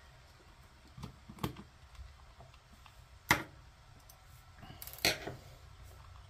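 A few sharp clicks and taps of small plastic mount parts and a screwdriver being handled on a wooden desk. The loudest click comes about three seconds in, with another near the end.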